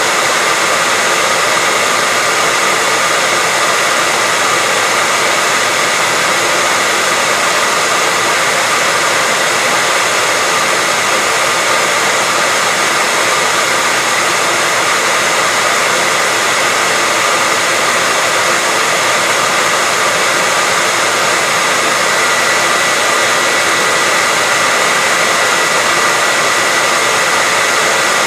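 Hair dryer running continuously at a steady speed: an even, unbroken rush of air with a steady whine in it.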